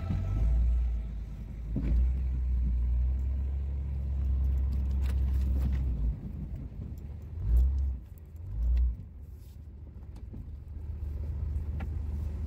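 Plow-equipped Dodge Ram 2500 pickup running slowly while pushing snow, heard from inside the cab as a low, steady rumble. It eases off a little past halfway, with two short louder surges close together, then builds again near the end.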